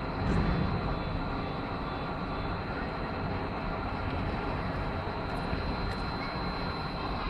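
Steady rumbling hiss of a large indoor arena, with a thin high whine running under it and a slight low swell just after the start.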